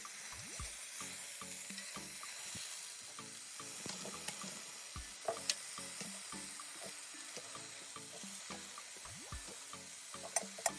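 Steak sizzling on an electric indoor grill, a steady hiss with a few sharp clicks about five seconds in and near the end.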